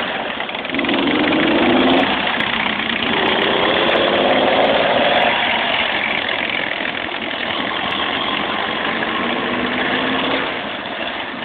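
A military vehicle's engine running loudly, its pitch rising twice in the first five seconds as it revs.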